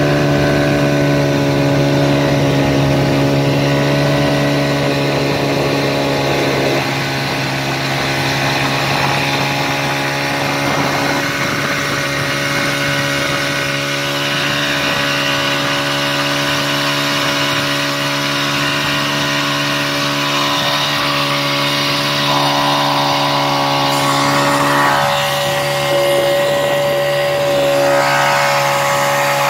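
Engine of the towing motorboat running steadily at towing speed, its note shifting slightly a couple of times, over the rush of water and spray.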